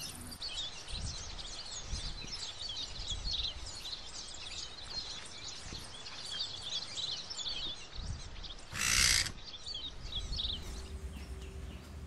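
Many birds chirping and twittering in quick, overlapping calls. About nine seconds in there is one brief, louder rushing noise, the loudest thing heard.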